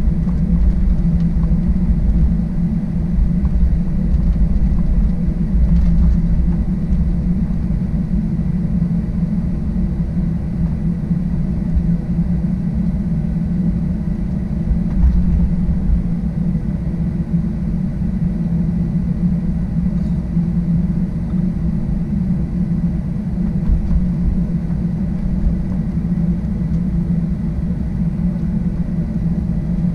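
Cabin noise of a Boeing 737-800 taxiing: its CFM56-7B engines and rolling gear give a steady low rumble and hum.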